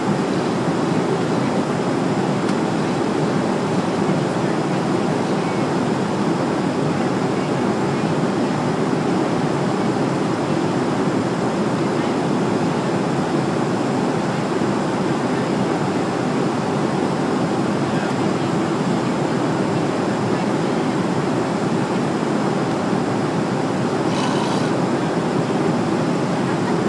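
Steady roar of a jet airliner's cabin in flight, the engine and airflow noise even throughout with no clear rise and fall.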